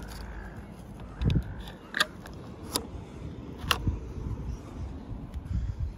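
A dull knock, then three sharp plastic clicks about a second apart as the flip cover of a weatherproof mains outlet is worked and a shore-power plug is pushed in, over a low, uneven rumble.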